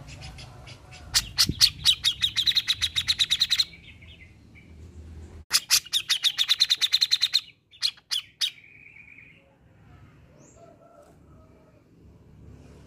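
Grey-cheeked bulbul (cucak jenggot) calling: two loud runs of fast, evenly repeated notes, each about two seconds long. A few short separate calls follow, and then it falls quieter.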